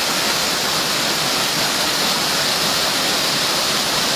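Steady, unbroken rush of a jungle waterfall.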